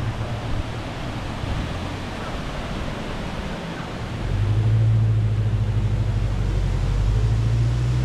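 A vehicle engine's low, steady hum over an even rush of water noise; the hum fades for a few seconds, then comes back louder about four seconds in.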